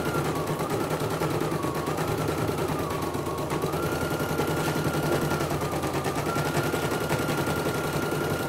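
CNY portable computerized embroidery machine stitching at speed on its test run after repair: a fast, even needle clatter with a motor whine that dips and steps back up several times.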